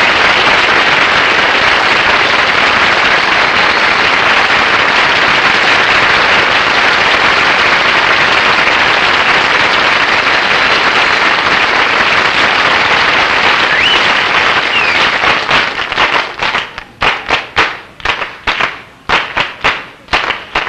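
Sustained applause and hand clapping. After about fifteen seconds it thins into steady rhythmic hand claps, about two or three a second, clapping in time to start a folk dance number.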